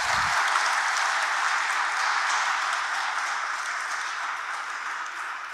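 Congregation applauding, a dense patter of many hands clapping that slowly dies down toward the end.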